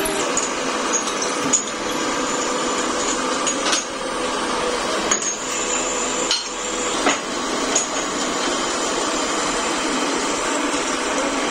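Pillar drill press running, drilling a steel truck kingpin bar, with a steady machine noise broken by half a dozen sharp metallic clinks and knocks at irregular intervals.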